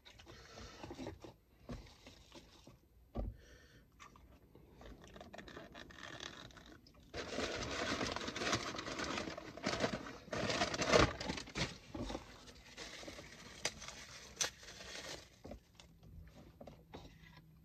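Takeout food being handled: a plastic spoon scraping and stirring in a food container, with plastic packaging rustling and small clicks. A denser stretch of rustling and scraping comes about seven to twelve seconds in.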